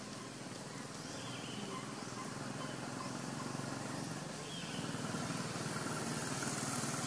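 Outdoor ambience with a motor vehicle engine running, growing louder from about halfway through, and faint high chirps repeating about once a second.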